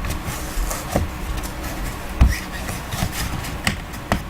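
Trading card box being opened and its contents handled: scattered rustles and light knocks of cardboard and wrapper, the loudest about two seconds in.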